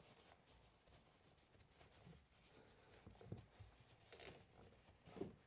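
Near silence with faint rustling from work gloves handling the 12-volt battery's disconnected negative terminal, a little more around three to four seconds in.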